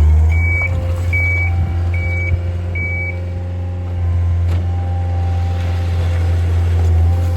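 A heavy diesel vehicle's engine running steadily with its backup alarm beeping four times, evenly spaced, before the beeping stops about three seconds in.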